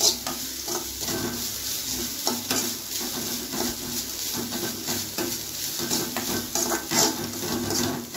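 Steel spoon stirring grated coconut frying in ghee in a metal kadai: repeated scrapes of the spoon against the pan over a steady sizzle.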